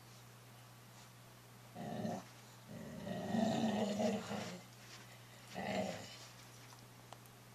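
A dog growling in three bursts: a short one about two seconds in, a longer, louder one from about three to four and a half seconds, and another short one near six seconds.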